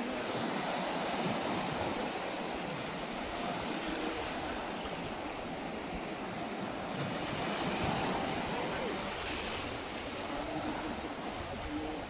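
Sea surf breaking and washing onto a beach: a continuous roar of waves that swells about a second in and again around eight seconds, as the larger waves break.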